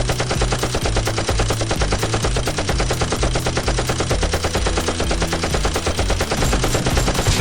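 Rapid automatic gunfire: a continuous stream of shots in quick succession, many per second, with no break.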